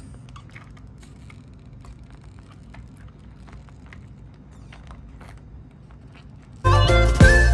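Faint, scattered light clicks and ticks over a low steady hum, then loud background music with plucked notes starts abruptly near the end.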